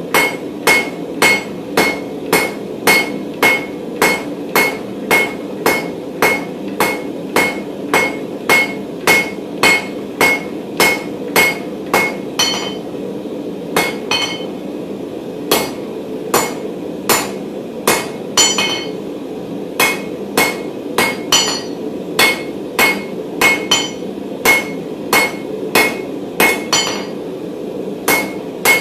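Hand hammer striking hot mild steel bar on an anvil, about two blows a second, each with a bright metallic ring, as the end is forged to a squared point. The blows thin out for a couple of seconds about halfway through, then pick back up.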